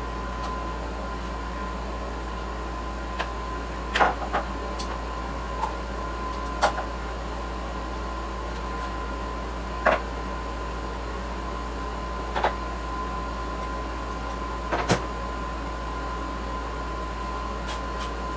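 A handful of short, sharp clicks and knocks from parts and tools being handled, scattered over a steady background hum with a faint high whine. There is no engine running.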